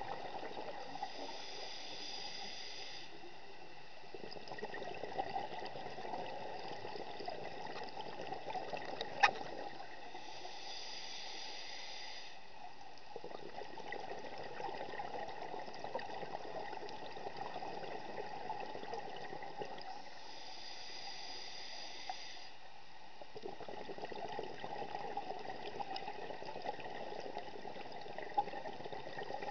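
Scuba regulator breathing underwater: a short hissing inhale about every ten seconds, each followed by a long bubbling exhale, three breaths in all. A sharp click about nine seconds in is the loudest single sound.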